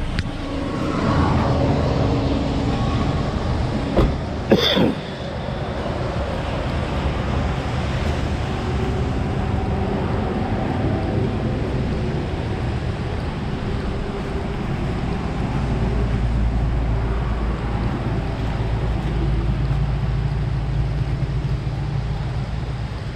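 Diesel log truck engine running steadily, with a couple of sharp knocks about four to five seconds in.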